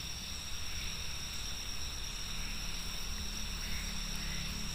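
Steady insect chorus, crickets chirring continuously at a high pitch, over a low steady rumble.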